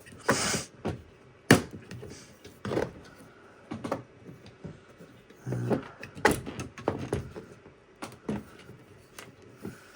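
Scattered clicks, knocks and scrapes of hard plastic and metal as a PC part is pushed and slid by hand, trying to seat it on the computer; the sharpest click comes about a second and a half in. The part won't go on, perhaps because the VGA port is in the way.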